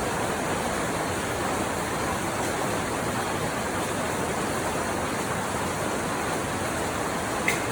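Steady heavy rain falling, an even dense hiss, with a single sharp tap of a drop near the end.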